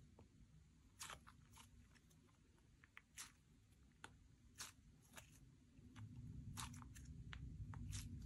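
Slime being mixed and stretched by hand, giving scattered sharp sticky clicks and pops, with a low rumble that grows louder about six seconds in.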